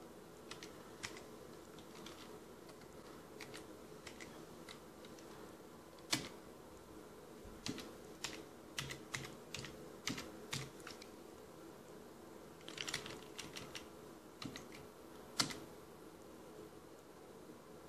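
Typing on a computer keyboard: irregular keystroke clicks, with quick runs of keys about halfway through and one sharper click near the end, over a faint steady hum.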